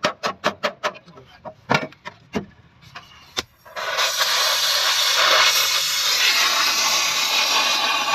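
Hammer blows on sheet-metal car bodywork, fast and even at about six a second, then slowing to a few single strikes. A little under four seconds in, a gas welding torch starts a loud, steady hiss.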